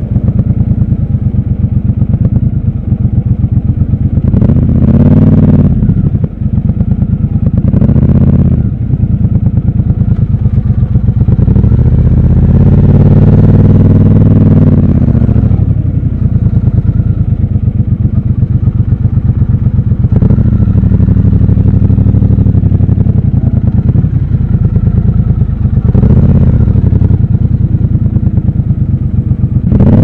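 Triumph Bobber's parallel-twin engine, heard from the rider's seat, running through low revs in city traffic. It revs up briefly several times and makes one longer climb and fall in pitch near the middle.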